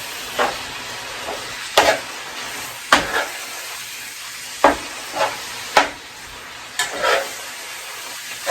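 Chopped vegetables, mushrooms and garlic sizzling in a frying pan while being stirred, with a spoon scraping and knocking against the pan at irregular moments, roughly once a second.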